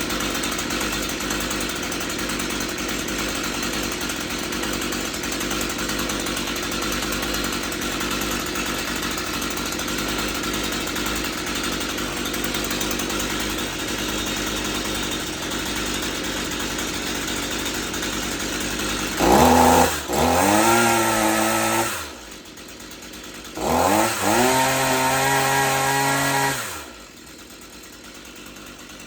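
Stihl MS 162 two-stroke chainsaw running steadily at a raised idle. After about twenty seconds it is revved up twice, a few seconds apart, the pitch climbing and holding each time before dropping back. It is quieter near the end.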